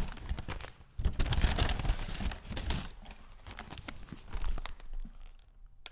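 Paper takeout bag and paper sandwich wrappers rustling and crinkling as they are handled close to a microphone. The rustling is loudest about a second in and fades out near the end.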